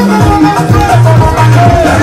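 Loud dance music with a deep bass line stepping between held notes under a higher melody.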